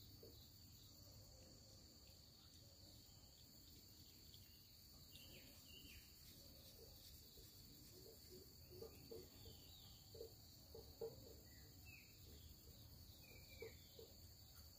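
Near silence: a faint, steady, high insect drone, with a few faint short falling chirps. From about eight seconds in come faint short clicks and smacks as a puppy chews meat out of a stainless steel bowl.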